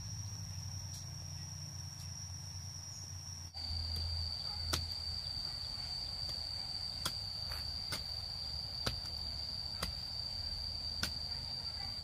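Insects drone with one high, steady tone, which shifts to a slightly lower pitch about three and a half seconds in. After that, a long digging pole strikes hard, dry ground about six times: sharp knocks at uneven intervals.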